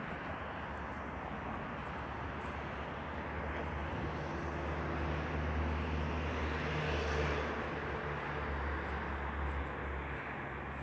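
Steady road traffic noise. A motor vehicle's engine hum builds about four seconds in, passes loudest with a tyre swish around seven seconds in, and fades out near the end.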